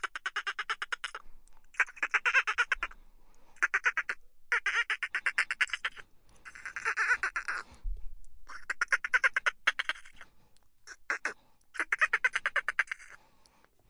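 Dolphin chatter: bursts of rapid clicks, each lasting about a second, coming one after another with short gaps between them.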